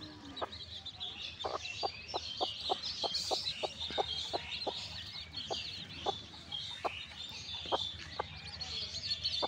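A brood of newly hatched chicks peeping continuously in high, rapid cheeps, while the mother hen clucks in short, low notes that come quickly in the first half and then space out.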